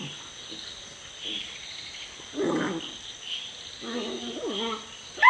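Great Dane puppies vocalizing while play-fighting: a short rough growl about two and a half seconds in, then a longer pitched growl that bends in pitch near the end.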